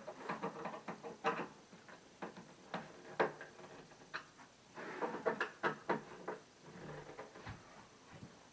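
Irregular knocks, taps and clatter of flat-pack cabinet parts being handled and fitted together, with rustling between the knocks.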